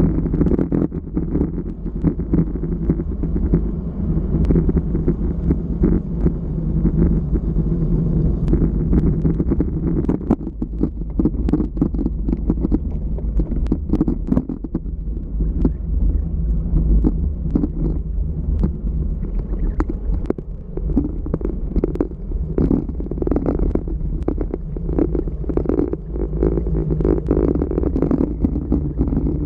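Wind buffeting an action camera's microphone on a bicycle descending fast, at about 40–50 km/h, over the low rumble of tyres on cracked asphalt. Frequent small knocks and rattles come through from the rough road surface.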